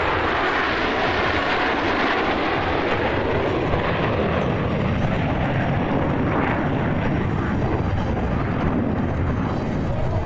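Steady, loud jet engine noise from a formation of F/A-18 Hornet jets in flight.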